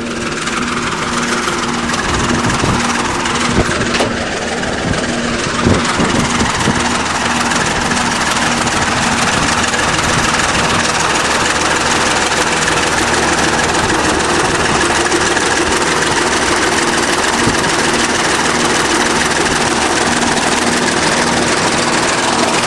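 Old 20-ton bulldozer's diesel engine running loud and steady at raised revs, loud enough to drown out talking.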